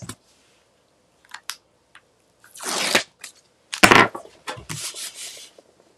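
Backing liners being peeled off strips of double-sided adhesive tape on chipboard: a few rasping peels, the longest about three seconds in, with a sharp tap just before four seconds as a board is handled, and more scraping after it.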